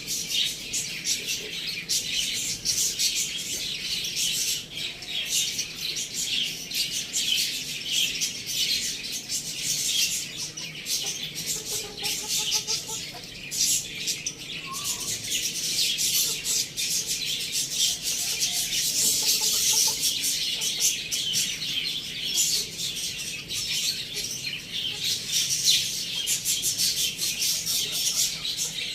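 Many small birds chirping and chattering at once, a dense, continuous twittering, with no rooster crowing.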